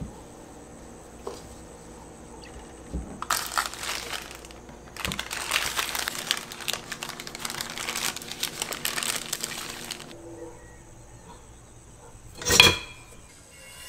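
Paper towel and paper wrapping crinkling as a raw veal shank is unwrapped by hand: a short stretch, then a denser one lasting about five seconds. Near the end comes one brief, loud clatter of metal utensils knocking together in a crock.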